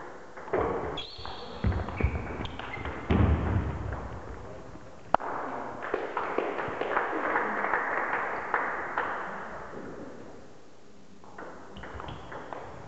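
Table tennis doubles rally on a wooden sports-hall floor: clicks of the ball, shoes squeaking and thudding as the players move, and one sharp crack about five seconds in. This is followed by a few seconds of clapping and voices as the point ends.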